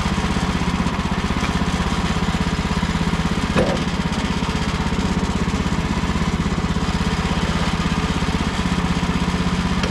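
Gas engine of a Woodland Mills HM130 Max portable band sawmill running steadily, with a short knock about three and a half seconds in.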